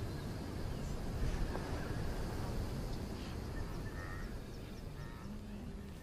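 Steady low background noise with a few faint animal calls, short pitched calls heard about four seconds in and again near the end.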